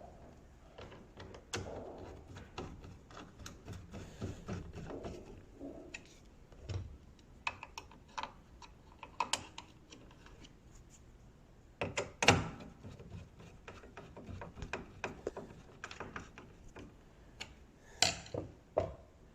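Scattered small clicks, taps and knocks of hand work on a washing machine's plastic and metal parts as the replacement door switch's screws are put back. The loudest, sharpest knock is about twelve seconds in, with a few more near the end.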